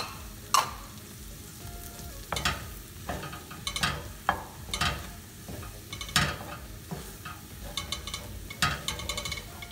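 Wooden spatula stirring mashed potatoes in a frying pan, with irregular scraping and knocking strokes against the pan, over a faint sizzle of butter and oil in the hot pan.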